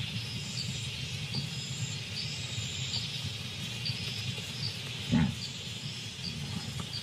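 Night insect chorus: a steady high hiss with a regular chirp about once a second, over a low steady rumble. About five seconds in, a large animal gives one short, low grunt.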